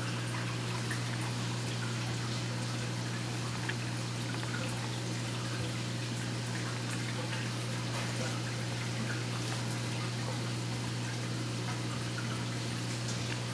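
Aquarium water circulating: steady trickling and dripping over a constant low hum, with a few faint clicks.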